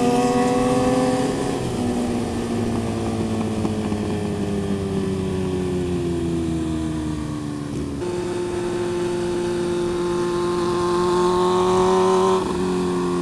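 Yamaha R15 motorcycle's single-cylinder engine running under way. Its pitch sinks slowly, steps up about eight seconds in, then climbs gently and drops back near the end.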